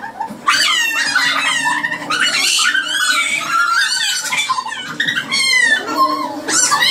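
Several women squealing and laughing in excitement, with high sliding shrieks overlapping one another and only a brief lull about half a second in.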